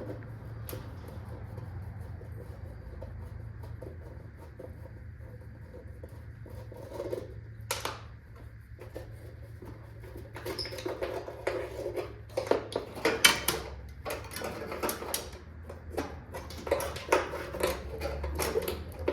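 Hand tools working on metal car parts: scattered light clicks, scrapes and clinks, busier and louder from about halfway on, over a steady low hum.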